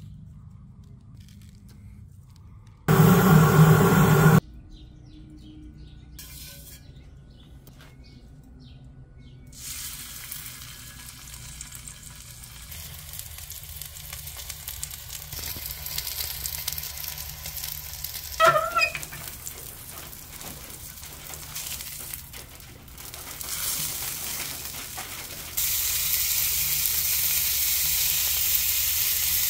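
Tuna steak sizzling on a hot flat-top griddle plate in a Big Green Egg, a steady hiss that sets in about a third of the way through and steps up louder near the end. Early on there is a brief loud burst, and a short pitched sound about two-thirds of the way in.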